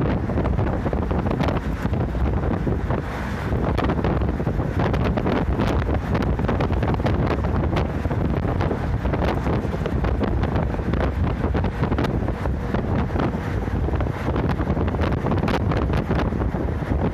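Inside a moving route bus at highway speed: steady engine and road noise with rushing wind and frequent short rattles and knocks from the bodywork.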